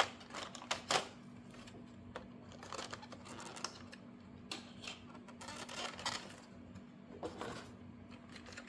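Cardboard box and clear plastic packaging tray being handled as a small plastic toy robot is taken out: scattered clicks and light knocks, one sharper click about a second in.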